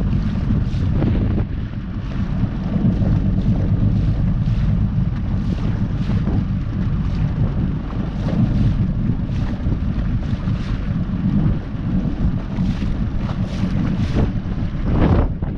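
Wind buffeting the microphone: a steady low rumble that swells and drops in gusts.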